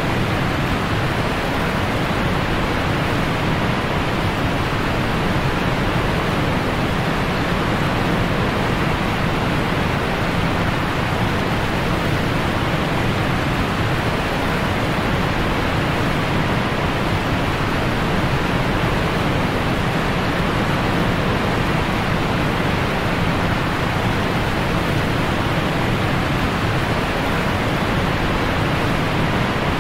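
Steady, unbroken rush of falling water from a waterfall.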